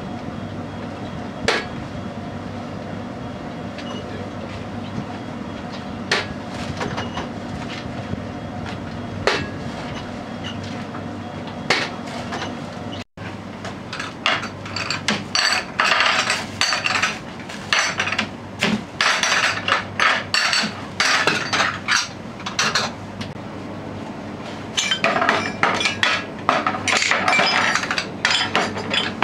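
A few isolated clinks of glassware over a steady low hum, then, from about halfway, dense irregular clattering of dishes and a metal tray being handled and washed in a small sink.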